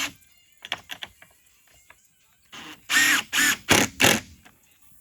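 Door lock hardware being fitted and worked: scattered sharp metal clicks, then four short loud rasping, ratcheting bursts about three seconds in.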